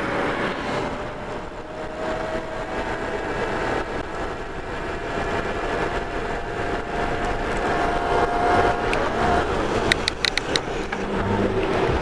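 Bafang BBS02 mid-drive e-bike motor whining under full assist, its pitch rising slowly as the bike gains speed, over a steady rush of wind and tyre noise. The whine drops out near the end, followed by a quick run of clicks.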